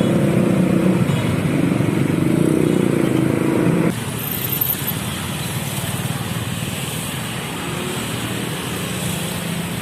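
Road traffic with motorcycle and car engines running. The louder engine sound cuts off abruptly about four seconds in, leaving a lower, steady traffic noise.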